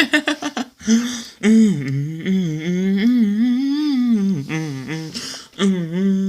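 Wordless cartoon voices humming, the pitch wavering up and down, with a few short choppy sounds and then one long held note near the end.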